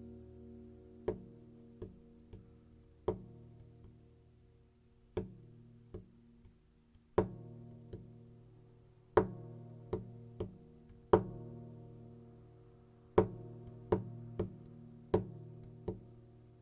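Slow instrumental guitar music: single plucked notes, one every second or two, each ringing out and fading over steady lower sustained tones.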